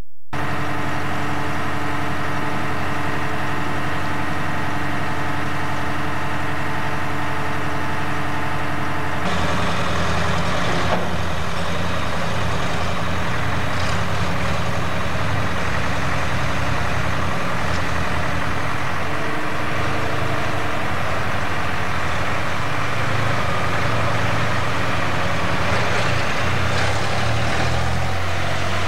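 Heavy machinery's diesel engine running steadily. Its sound changes abruptly about nine seconds in, becoming rougher and noisier.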